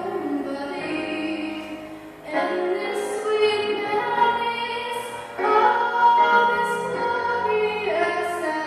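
Solo female voice singing over musical accompaniment, holding long notes. New phrases begin about two seconds in and again about five and a half seconds in.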